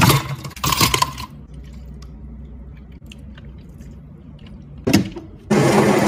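Ice cubes tipped from a metal scoop clatter into a plastic cup of crushed watermelon in two loud rushes, followed by faint ticks of ice settling as milk is poured over it. Near the end an espresso machine starts a steady, loud whirring hum.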